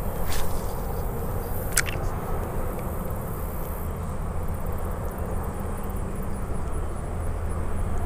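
A spinning reel being cranked to bring back a cast lure, over a steady low rumble of wind on the microphone. A sharp click comes just before two seconds in.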